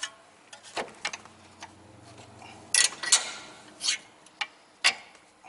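Wrench and hand tools clinking on the bolts at the bottom of a car's front strut and spindle: scattered metallic clicks, with a cluster of sharper clanks a little past halfway and another near the end.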